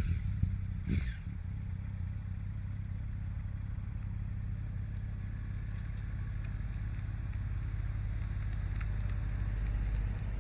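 Low, steady drone of a Douglas C-47/DC-3's twin Pratt & Whitney R-1830 radial engines heard from afar, growing slowly louder, with a brief knock near the start.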